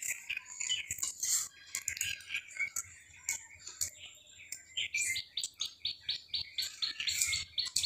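A small bird chirping: scattered high chirps, turning about five seconds in into a quick regular run of about six chirps a second.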